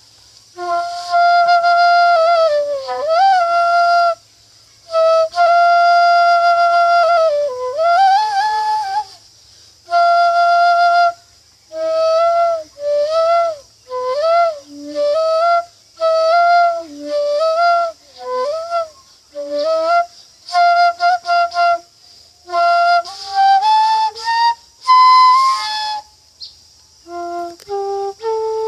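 Handmade bansuri (bamboo flute) played solo: long held notes joined by slides, then quicker, shorter notes with brief breaks, and near the end a few notes climbing step by step.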